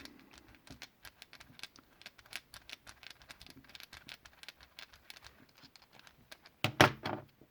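Torx bit and driver working in a padlock's screw, making a run of small irregular metal clicks, with a much louder knock about seven seconds in.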